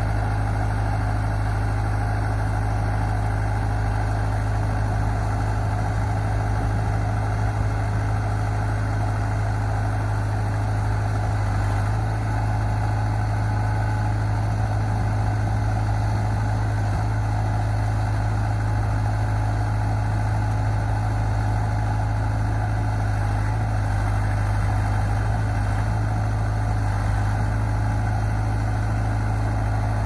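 2007 Dirt Boss JC60 skid steer's engine running steadily at idle.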